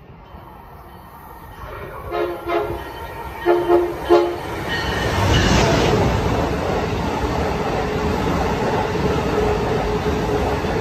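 Amtrak Acela Express electric high-speed train approaching and sounding its horn in two broken blasts. It then rushes past at speed, a loud steady roar of wheels on rail and air from about five seconds in.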